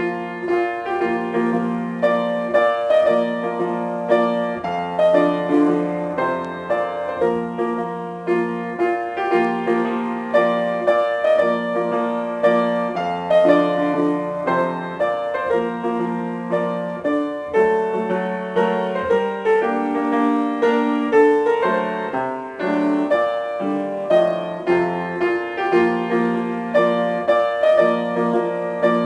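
Piano music, a steady run of notes.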